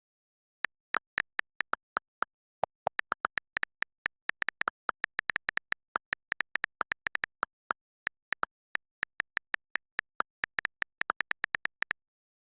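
A rapid, irregular string of very short electronic blips at two slightly different pitches, about five a second, with two short pauses.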